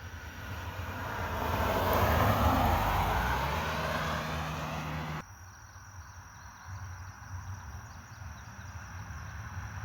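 A vehicle passing on the road, its tyre and engine noise swelling to a peak about two to three seconds in, then cutting off abruptly about five seconds in, leaving a low rumble. No horn sounds.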